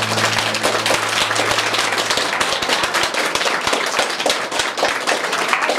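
Audience applauding: many hands clapping in a dense, steady patter, with the last note of the music dying away in the first second or so.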